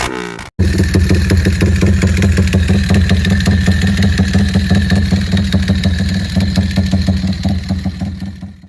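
Yamaha Y15ZR motorcycle's single-cylinder engine idling steadily with an even pulse. Its revs die away in the first half-second, it cuts off briefly, and near the end it fades out.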